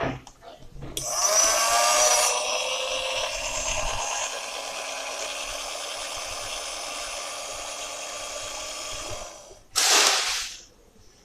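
Small electric motor of a mini washing machine starting up with a briefly rising whine, running steadily for about eight seconds, then stopping. A short burst of hiss-like noise follows near the end.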